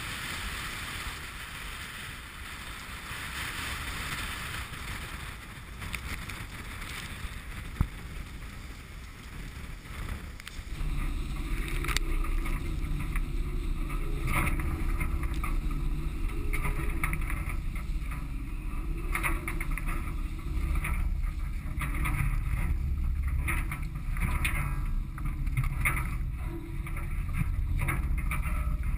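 Wind and rushing water aboard a Dazcat 1150 catamaran sailing fast: a steady hiss of water along the hulls. About ten seconds in, this gives way to a louder low rumble of wind buffeting the microphone, with scattered sharp knocks of spray and waves slapping the hulls.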